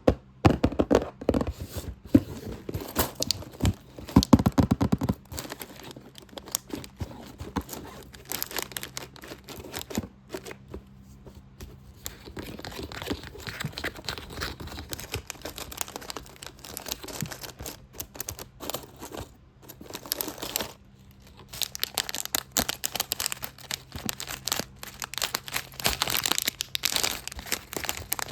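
Fast, rapid tapping on a box for the first few seconds, giving way to dense scratching and crinkling against it, with a short lull about two-thirds of the way in.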